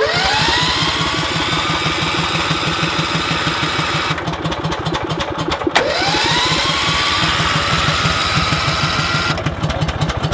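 Electric starter cranking a cold Briggs & Stratton Vanguard 18 hp V-twin engine: the starter whines up to speed and the engine turns over in fast, even chugs without catching. Cranking starts again a little before six seconds in.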